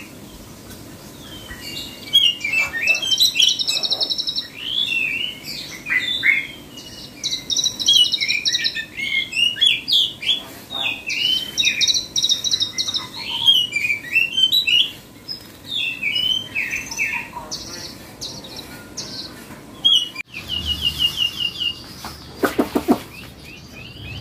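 Caged songbird singing nonstop: a fast, varied song of chirps, whistles and trills. About twenty seconds in it breaks off, then goes on as a quick run of repeated notes and a harsh call.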